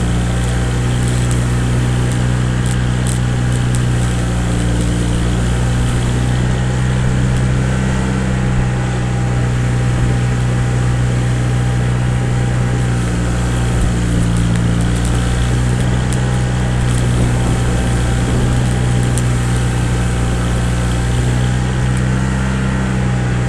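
An engine running steadily at a constant speed, with a low, even hum that does not change.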